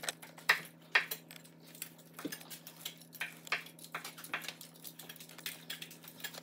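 A knife cutting grilled chicken thighs on a wooden cutting board: short, irregular taps and clicks of the blade against the board. A faint, steady low hum runs underneath.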